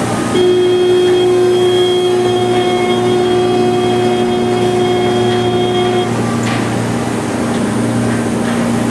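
Ferry boat's engine running with a steady low hum. A long steady note, clear and unwavering, sounds over it from just after the start and cuts off about six seconds in.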